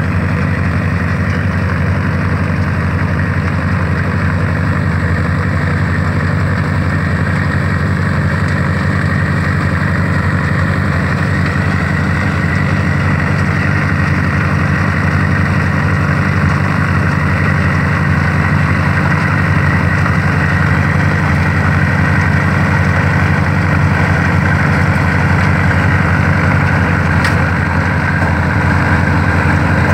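Engine of an old ZIL truck running steadily, with an even low drone.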